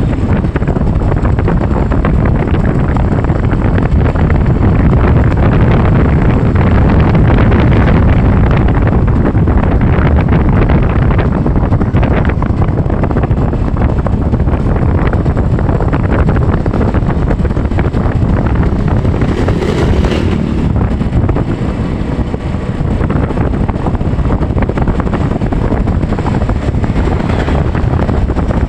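Wind buffeting the microphone of a moving vehicle, over steady engine and road noise.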